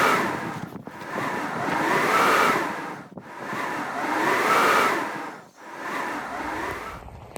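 Blizzard wind howling in gusts, each surge swelling and fading about every two seconds, with a whistling tone that rises and falls in pitch.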